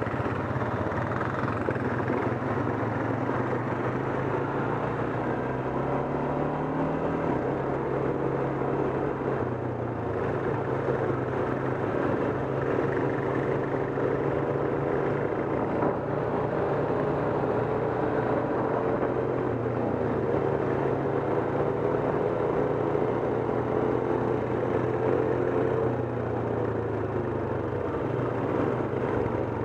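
ATV engine running while riding, its pitch rising and falling with the throttle, with a clear rise and drop about six to seven seconds in.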